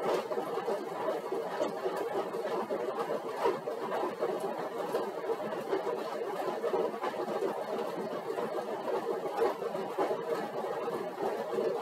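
Stationary exercise bike whirring steadily as it is pedalled at a light, even load.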